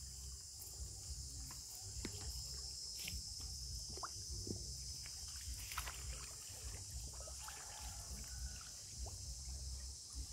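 A monkey paddling and splashing through shallow muddy water, with small scattered splashes. A steady high insect buzz runs underneath, over a low rumble.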